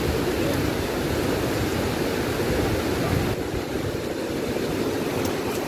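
Steady rush of flowing stream water, an even noise with no breaks.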